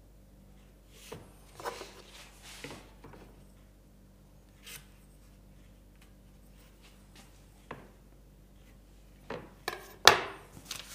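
Pencil and metal square being handled on a plywood board: scattered short scratches and light taps, with a louder cluster of knocks near the end as the square is set down on the board. A low steady hum sits underneath.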